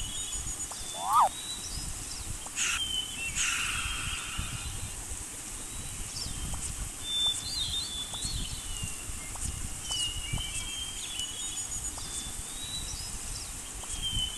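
Birds chirping in short phrases that recur every few seconds, over a steady low outdoor rumble, with a brief louder up-and-down call about a second in.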